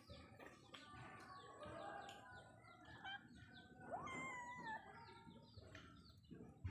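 A cat gives one short meow, rising then falling, about four seconds in, over faint, continual bird chirping.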